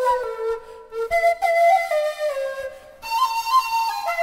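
Background music: a flute playing a melody in short stepped notes, with brief pauses about a second in and near three seconds.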